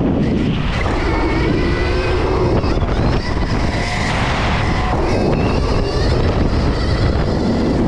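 Stark VARG electric dirt bike ridden hard: a thin electric-motor whine glides up and down with the throttle under heavy wind rush on a helmet-mounted camera's microphone.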